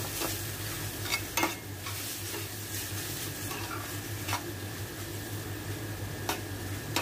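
Sliced chicken breast sizzling in butter and oil in a stainless steel sauté pan, while metal tongs turn the pieces, scraping and clicking against the pan. A few sharp clicks stand out, the loudest about a second and a half in.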